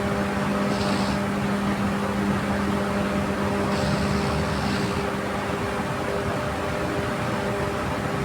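Steady mechanical hum: a low drone with a few steady tones over even noise. Two brief soft hisses come about a second in and again around four seconds in.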